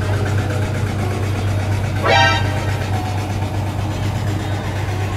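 Steady low drone of boat engines running, with one short, slightly rising high-pitched call about two seconds in.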